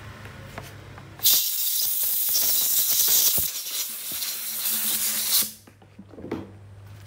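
Compressed-air blow gun blasting the washed Tanaka 27cc brush cutter engine: one loud, steady hiss that starts about a second in, lasts about four seconds and cuts off suddenly.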